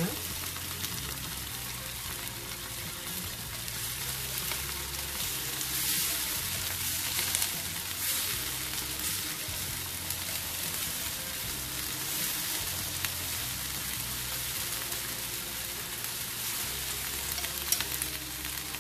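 Sliced chillies, garlic and shallots sizzling steadily in oil and a little water in a frying pan, with a spatula stirring through them and a few sharp taps against the pan.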